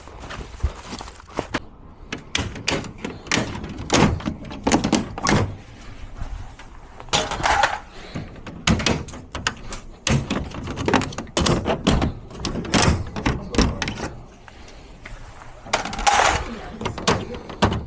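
Repeated knocks and thuds of things being handled and set down, with snatches of indistinct talk.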